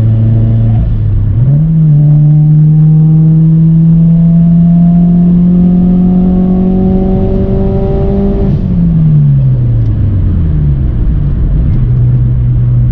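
Turbocharged 2015 Scion FR-S four-cylinder boxer engine accelerating hard on the highway. The engine note steps up about a second in and climbs steadily for several seconds. A little past halfway the revs fall away, and the engine settles into a steady cruise.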